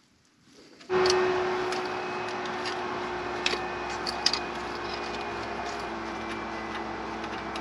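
A motor-driven machine starts abruptly about a second in and runs steadily with a constant hum and hiss, its pitch sagging very slightly. A few light clicks sound over it midway.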